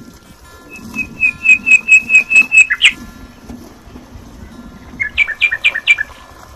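A bird calling close by: a quick run of about eight sharp, evenly spaced chirps, then a shorter run of four or five near the end, over a low steady hum.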